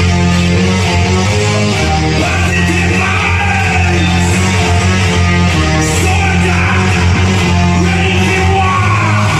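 Music: a song with a singing voice over long held bass notes.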